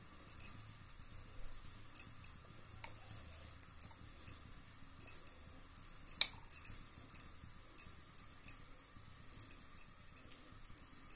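Steel spoon lightly clinking and scraping against a small glass bowl while thick batter is spooned over a skewered soya chaap stick: irregular light clicks and taps, one or two a second.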